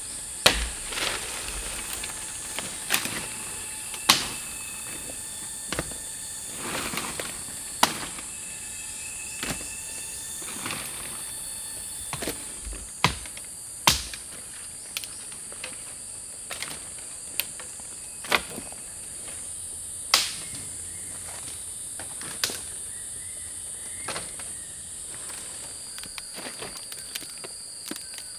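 Steady high-pitched insect chorus, with sharp knocks or taps at irregular intervals, roughly one every second or two. Near the end a second, slightly lower steady insect tone joins in.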